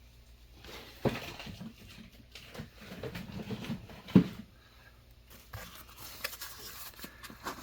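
A cardboard knife box being handled, with rustling and scraping and two sharp knocks, the louder one about four seconds in.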